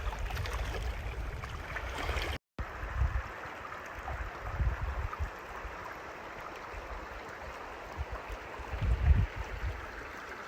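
Steady rush of flowing stream water, with low gusts of wind buffeting the microphone now and then; the sound cuts out for a moment about two and a half seconds in.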